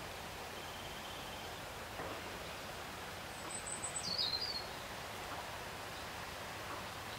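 A small bird's brief song over steady outdoor background hiss: a quick run of very high notes about halfway through, then a lower warbling phrase.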